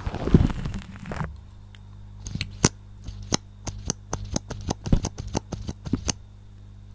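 Close-miked ASMR sounds on a microphone: about a second of scratchy rubbing, then a run of sharp clicks or taps, roughly two to three a second, that stop near the end. A low steady hum lies underneath.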